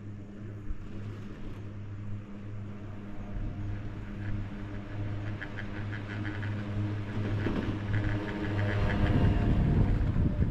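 Chairlift running: a steady low mechanical hum, joined about halfway by a fast rattling clatter that grows louder, with wind on the microphone building near the end.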